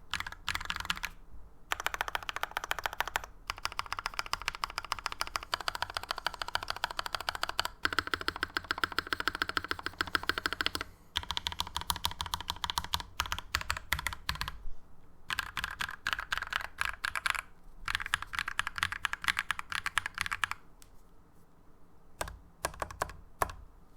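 Typing on a custom aluminium tenkeyless mechanical keyboard with an aluminium plate, lubed linear switches and GMK keycaps: fast runs of keystrokes in bursts with short pauses, thinning out to a few single presses near the end.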